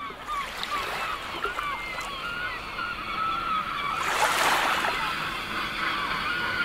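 Waterfront ambience of water lapping, with many short bird calls over it and a louder wash of water lasting about a second, starting about four seconds in.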